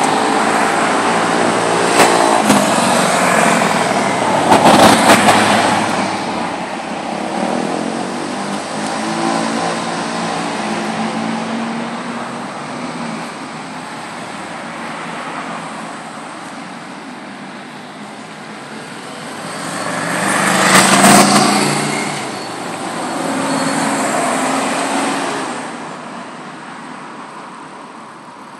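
Road traffic on a city street, picked up by a smartphone's built-in microphone. Cars pass one after another with their engine pitch sliding as they go by. The closest passes swell loudest about five seconds in and again about twenty seconds in.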